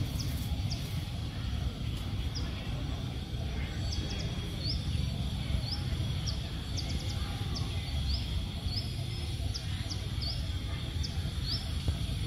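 Outdoor ambience: a steady low rumble with many short, high, rising chirps scattered irregularly through it, and a faint steady high tone.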